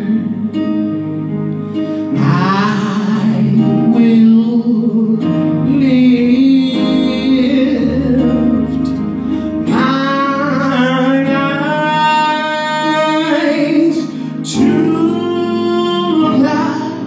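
A man singing a gospel song live into a microphone, accompanying himself on an electronic keyboard; his phrases are long held notes that bend in pitch over sustained chords.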